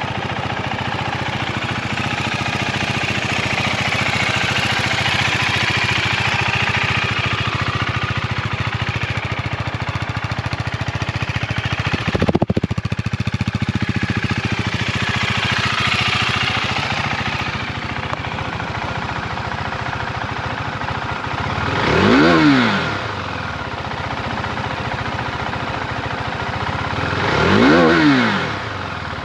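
2020 KTM 390 Duke's single-cylinder engine idling, then revved twice near the end, each blip rising and falling in pitch within about a second.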